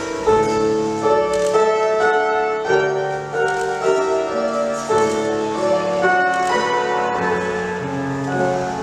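Piano playing classical-style music, melody over chords, as accompaniment for ballet barre exercises.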